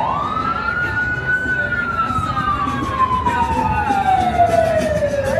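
Emergency vehicle siren on its wail setting: one long cycle that rises quickly, falls slowly over about four seconds, then starts rising again near the end.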